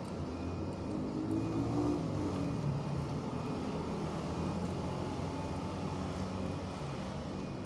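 A motor vehicle's engine running with a low, steady rumble, growing a little louder from about one to three seconds in.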